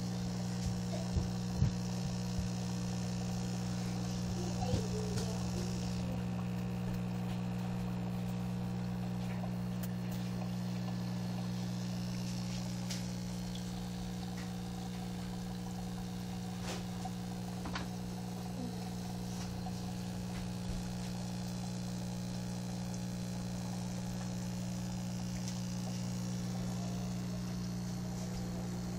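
Steady low hum of an aquarium air pump driving sponge filters turned up high, with air bubbling up through the water. A few light knocks come in the first seconds.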